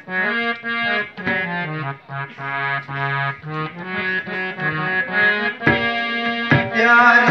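Harmonium playing a stepped melody over held low notes. Two sharp strokes come in near the end, and the music grows louder.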